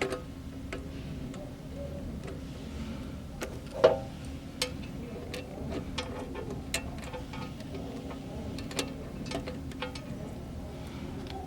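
Scattered small clicks and taps of metal lock parts and screws being worked into place with a screwdriver, with one sharper knock about four seconds in, over a steady low hum.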